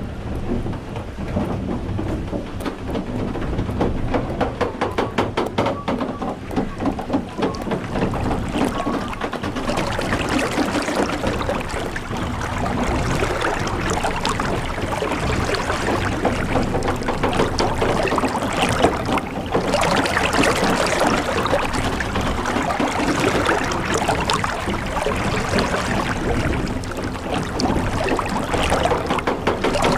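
Sound effects for a wooden water-lifting machine: rapid clacking of wooden gear teeth over a low rumble, giving way after about ten seconds to water sloshing and pouring with knocks from the pump gear.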